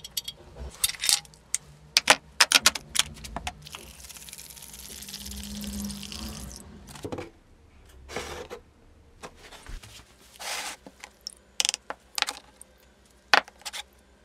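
Sharp clinks and knocks of rusty steel parts being worked with a bar in a bench vise, then a few seconds of steady liquid pouring into a plastic tray of rust remover. After that come scattered short splashes and clinks as the parts go into the liquid bath.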